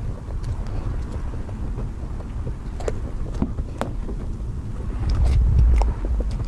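Someone eating cake: scattered soft clicks and smacks of biting and chewing over a steady low rumble, which swells louder about five seconds in.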